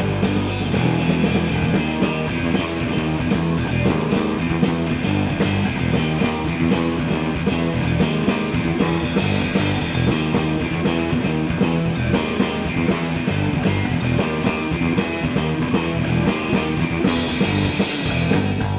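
Instrumental rock music with guitar and a drum kit keeping a steady beat, no vocals.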